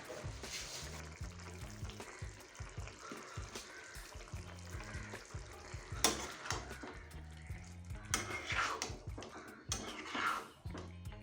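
A spatula stirring and scraping through a karahi of simmering pui saag in mustard-poppy paste, with a sharp knock against the pan about six seconds in, over background music.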